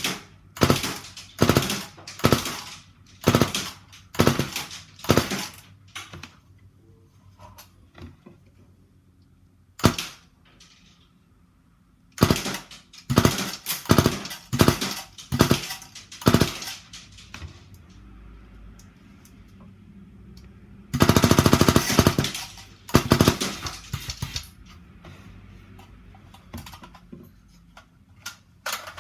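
Suppressed gunshots from a gun fitted with a fat silencer: runs of single shots about one to two a second, and a rapid burst lasting about a second roughly two-thirds of the way in.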